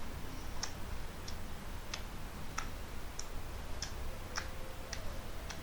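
Clear jelly slime being pressed and worked by hand, giving small sharp clicks in a steady rhythm, a little under twice a second.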